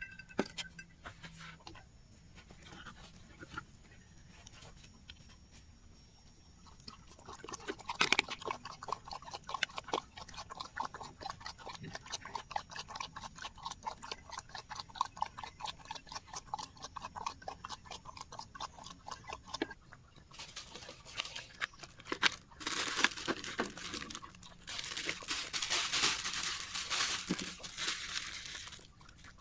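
A dog chewing and crunching on food: rapid crackly crunching that starts about a quarter of the way in and grows louder in bursts near the end.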